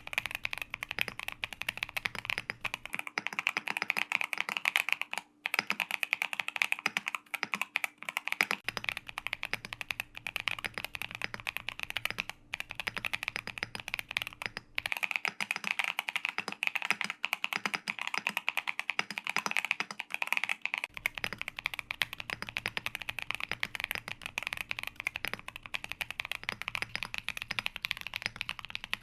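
Mechanical keyboard fitted with Akko V3 Creamy Purple Pro tactile switches and case foam, typed on continuously in a fast, unbroken stream of key clacks.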